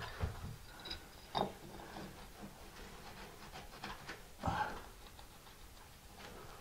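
Faint, scattered clicks and taps of small mosaic tiles being pressed and wiggled into place on a shower ceiling, with a louder knock about a second and a half in and another around four and a half seconds in.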